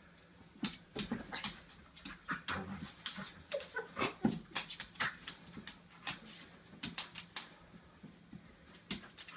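Two border collies, an adult and an eight-week-old puppy, play-fighting: a quick, irregular string of short dog noises and scuffles, busiest in the middle.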